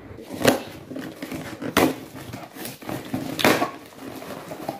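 Cardboard shipping box being handled and opened by hand: rustling and scraping of cardboard, with three sharper rips or knocks about half a second, two seconds and three and a half seconds in.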